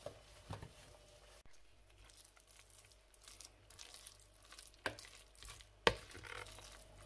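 A spoon stirring a thick batter of grated zucchini and carrot in a mixing bowl: soft wet scraping and squelching, with a few sharp knocks of the spoon against the bowl, the loudest just before the sixth second.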